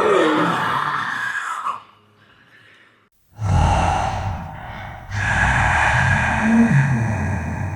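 Zombie vocal sound effects: raspy, breathy gasps and groans. The first trails off about two seconds in, and after a short silence two more follow one after the other.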